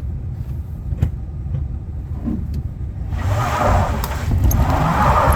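Truck engine running with a steady low rumble and a couple of sharp knocks, joined about three seconds in by a loud rushing noise.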